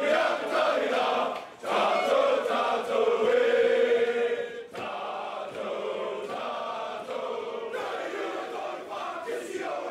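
A group of men chanting together in unison. The chanting is loud at first and drops to a lower level about five seconds in.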